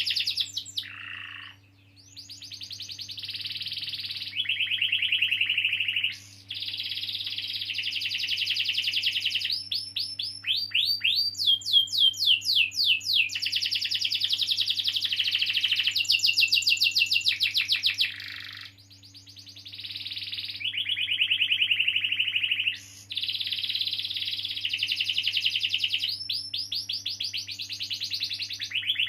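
Domestic canary singing long rolling trills: rapid runs of repeated notes and quick sweeping notes in long phrases, broken by brief pauses about two seconds in and again a little after halfway.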